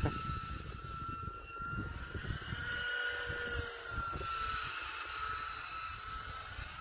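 Motor and propeller whine of a radio-controlled model F-104 Starfighter flying overhead. The single high whine swells and dips gently in pitch as the plane passes, over a low irregular rumble.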